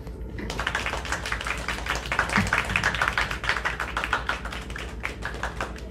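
A rapid, dense run of small taps and rustles, the sound of hands handling stuffed-toy puppets off-stage while one is swapped for the next. It starts about half a second in and thins out near the end.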